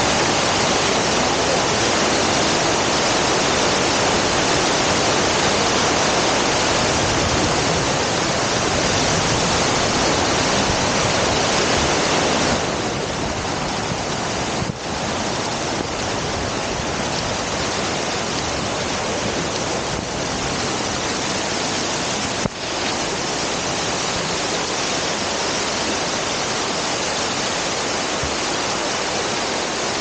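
Water pouring over a curved check dam's spillway and crashing onto the rocks at its foot: a loud, steady rush that drops a little in level about twelve seconds in.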